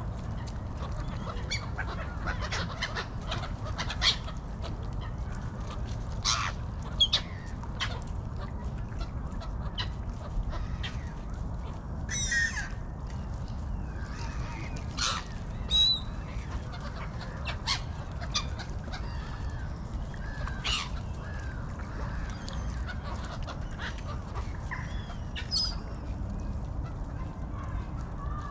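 Canada geese honking and gulls calling, scattered short calls with a few louder ones, over a steady low rumble.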